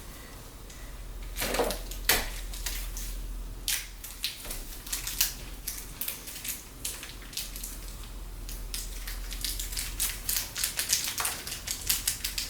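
Computer hardware being handled and fitted: a couple of knocks about one and a half and two seconds in, then a run of quick, light, irregular clicks and taps that grows denser toward the end.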